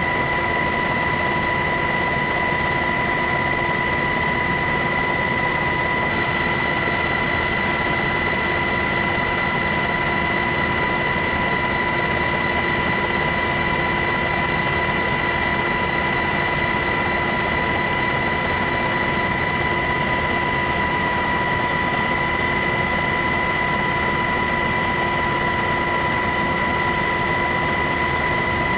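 Steady helicopter noise heard from aboard: an even rushing din with several constant whining tones over it, unchanging throughout.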